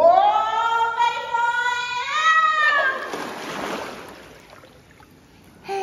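A high, drawn-out 'wheee'-like call: it rises, holds, rises again and then falls away. At about three seconds a splash of pool water follows as a toddler goes under, and after that a stretch of muffled quiet.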